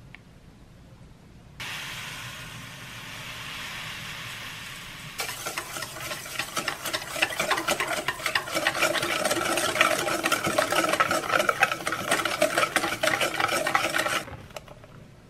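A stream of liquid pouring into a stainless steel mixing bowl, then a wire whisk beating rapidly against the bowl, a fast clatter with a ringing metallic tone, which stops abruptly near the end.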